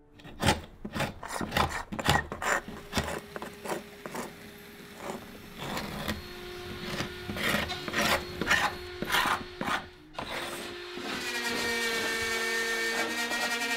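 A hand scraper rasping old paint off a painted wooden sash window frame in quick, irregular strokes. About eleven seconds in, a power drill starts running steadily against the frame.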